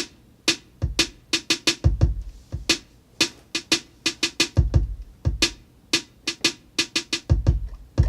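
Drum beat from a Native Instruments Maschine MK3: a steady pattern of sharp, crisp hits several times a second over deep kick drums that ring on briefly.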